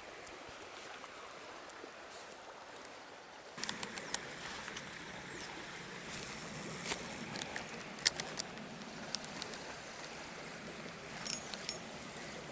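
Steady rushing of a small river, getting louder about three and a half seconds in, with a few sharp clicks and taps scattered through.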